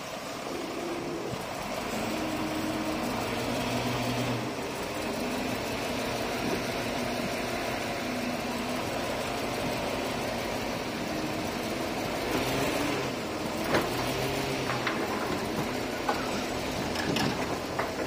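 Diesel engine of heavy earthmoving machinery working under changing load, its note rising and falling, with a few sharp metallic clanks and knocks in the last few seconds.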